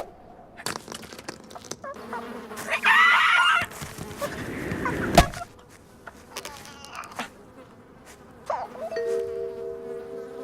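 Cartoon sound effects: a short chirpy, squawking character vocal, then a rising noise that ends in a sharp hit about five seconds in. From about nine seconds an insect-like buzz sounds as a few steady tones.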